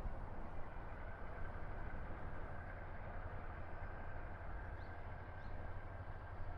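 Wind buffeting the microphone: a steady low rumble whose loudness flickers, with two faint short high chirps about five seconds in.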